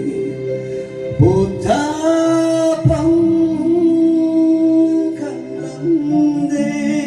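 Music with a voice singing long, held notes.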